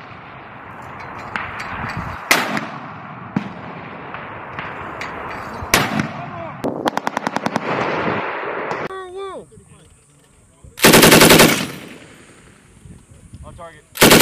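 Military small-arms live fire: scattered single rifle shots over a continuous echoing rumble of firing, with a quick automatic burst of about a dozen rounds around seven seconds in. About eleven seconds in comes a very loud, close burst of machine-gun fire lasting under a second, and another loud burst from a belt-fed machine gun starts right at the end.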